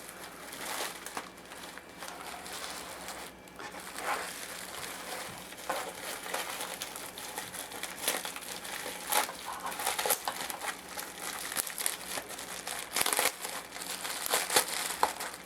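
Packaging being unwrapped by hand: plastic and bubble wrap crinkling and rustling in irregular crackles, with occasional sharper snaps.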